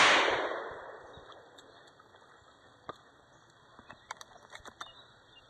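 A single gunshot right at the start, its report dying away over about a second and a half, followed by a few faint clicks and taps.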